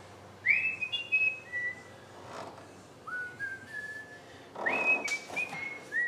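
A person whistling a tune: short held notes stepping up and down, starting about half a second in, with a gap of about a second midway before a second phrase. Brief handling noises fall between the phrases.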